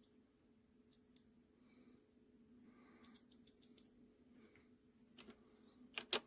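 Faint clicks of small buttons being pressed, over a low steady hum: two single clicks, a quick run of about six, then two louder clicks near the end.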